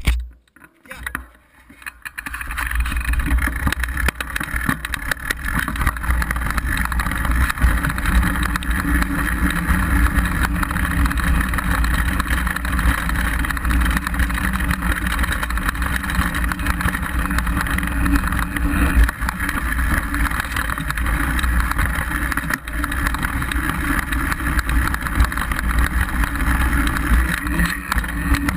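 Riding noise picked up by a downhill mountain bike's low-mounted action camera: wind buffeting the microphone and knobby tyres rolling over a rocky dirt track, a steady deep rumble with small jolts. It starts about two seconds in, after a few knocks from a hand on the camera.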